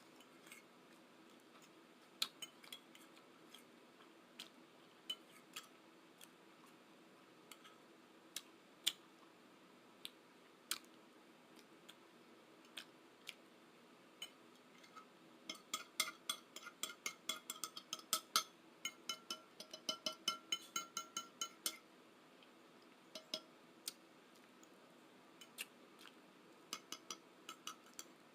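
Close-miked eating sounds: scattered sharp clicks and taps, with a dense run of rapid clicking lasting about six seconds past the middle.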